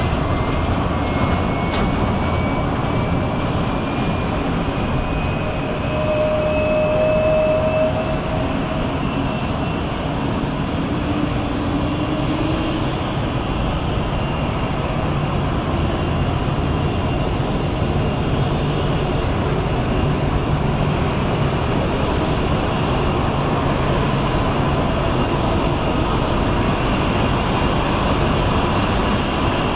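Swiss Airbus A220's Pratt & Whitney PW1500G geared turbofan engines running at taxi power: a steady jet rumble with a high whine that rises slowly in pitch over the first several seconds.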